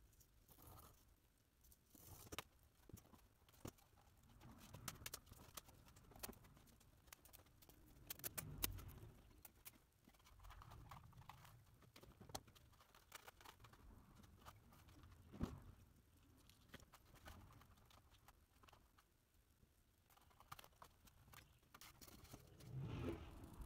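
Faint handling sounds of foam board and tools being moved on a cutting mat: scattered light clicks and taps, with a few soft knocks.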